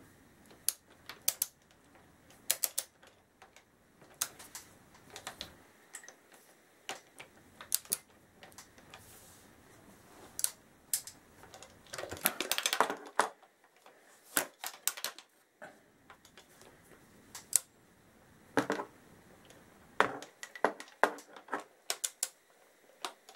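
Socket ratchet clicking in short bursts as the rocker cover bolts of a motorcycle V-twin are wound in, with a dense run of clicks about halfway through.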